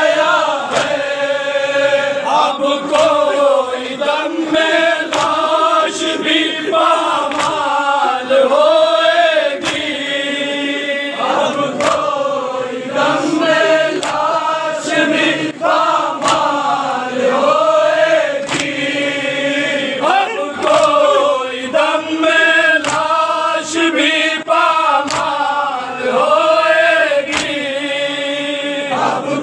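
A group of men chanting a noha, a Shia lament, in unison, with sharp slaps at fairly regular intervals from hands striking chests (matam) keeping the beat.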